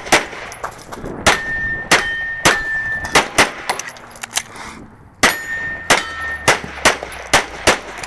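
Rapid pistol fire from a single-stack 1911-style pistol, about a dozen shots in quick strings with a pause of about two seconds in the middle. After some shots a steel target rings with a steady high tone, and it keeps ringing between the shots.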